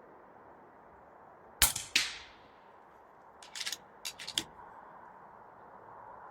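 FX Panthera Hunter Compact PCP air rifle firing a single shot: one sharp crack, then a second sharp crack a third of a second later with a short fading tail. A run of smaller mechanical clicks follows about a second and a half later.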